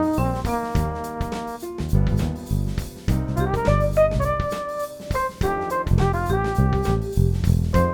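Background jazz music with drum kit, bass, piano and brass, at a steady beat.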